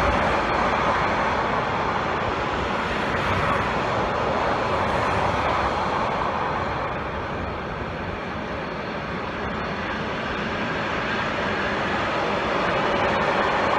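Long freight train of enclosed car-carrier wagons rolling past, a steady rumble of wheels on rails that eases a little about halfway through and then picks up again.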